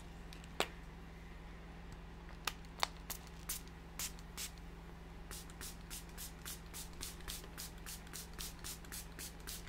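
Small plastic fine-mist spray bottle of acrylic ink pumped in short sharp sprays, a few spaced ones at first, then a quick even run of about three a second over the last four seconds.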